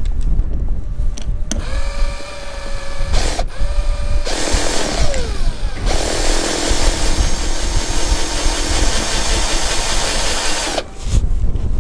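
Cordless drill-driver screwing a piece of metal gutter onto a corrugated galvanized steel roof sheet: a few short whining runs of the motor, one dying away in pitch, then a longer, noisier run of about five seconds that stops near the end. Wind rumbles on the microphone throughout.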